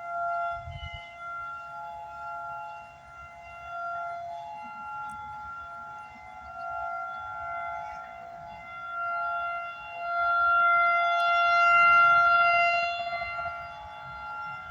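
Outdoor tornado warning siren sounding its weekly test: a steady chord of high tones that swells and fades in loudness, loudest about ten to thirteen seconds in.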